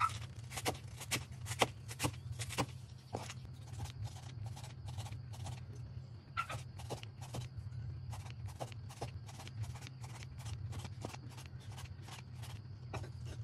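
Knife slicing raw beef thin on a cutting board: a steady run of cutting strokes, about two to three a second, each ending in a short knock on the board, over a steady low hum.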